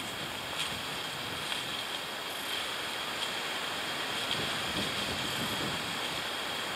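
Wind rushing steadily through woodland. Faint rustling and a few light steps on leaf litter come in as the hammock is carried away.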